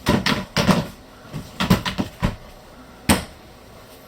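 Storage door and plastic totes being handled inside the trailer: a run of knocks and clatters, then one sharp knock a little after three seconds in as the door is shut.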